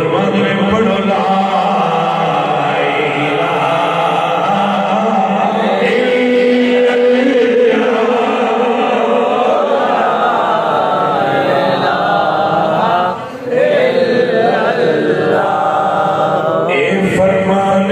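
Men chanting a devotional recitation in long, wavering held notes, amplified through loudspeakers, with a short break about 13 seconds in.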